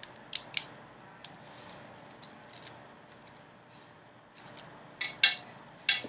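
Sharp plastic clicks from mechanical-pencil parts being handled and fitted together by hand: two clicks near the start, a few faint ticks, then three louder clicks in the last second or so.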